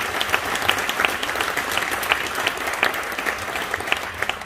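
Audience applauding: many hands clapping densely and steadily, beginning to thin out near the end.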